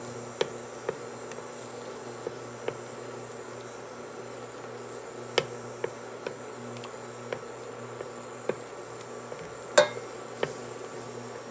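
Wooden spoon knocking and scraping against a stainless-steel pot of melting butter: about a dozen sharp, irregular taps, the loudest about ten seconds in. A steady low buzz from the electric hob runs underneath.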